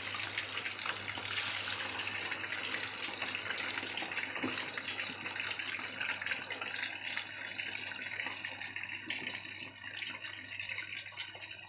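Sumedang tofu deep-frying in hot oil in a wok: a dense, steady crackling sizzle of bubbling oil, a little softer toward the end.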